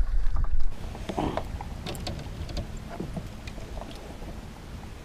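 Wind buffeting the microphone, loud for the first moment and dropping off sharply within a second. After that come scattered light clicks and knocks on the kayak.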